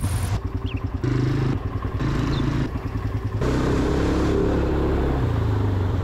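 ATV engine running, chugging unevenly at low revs in the first few seconds, then pulling at a steadier note whose pitch steps up and down as it is ridden.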